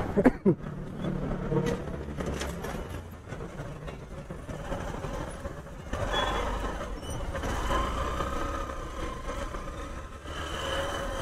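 Motorcycle engine running at low road speed, with tyre and road noise and other traffic passing close by.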